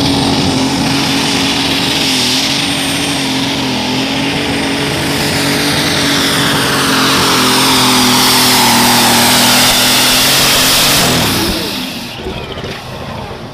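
A Case pulling tractor's engine runs hard at high, steady revs under full load down the track. About eleven and a half seconds in, the sound falls away suddenly as the tractor breaks down in a cloud of smoke.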